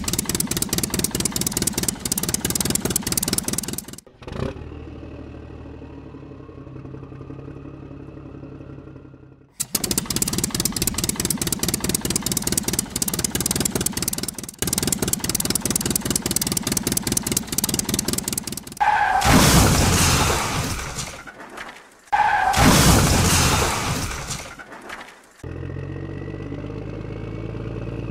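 Engine sound effects laid over toy tractors and a toy backhoe: a rapid diesel-like chugging, then a quieter idle with a slowly rising whine, the chugging again, two loud rushing surges that each fade away, and a steady engine hum near the end.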